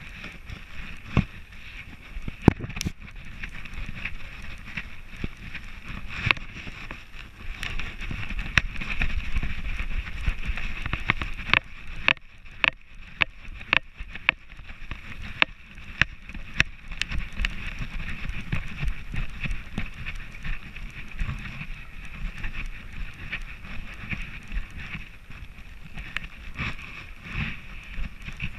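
Rubbing and jostling noise from a camera strapped to a walking dog's harness: a low rumble of wind and rubbing on the microphone, with scattered sharp clicks and knocks from the mount as the dog moves.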